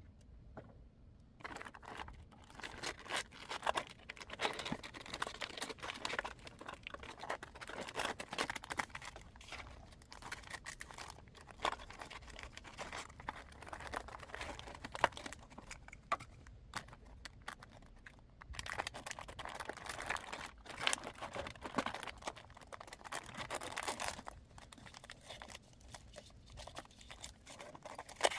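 Irregular crinkling and rustling, as of material being handled and crumpled, with small crackles. It starts a second or two in and eases off briefly twice.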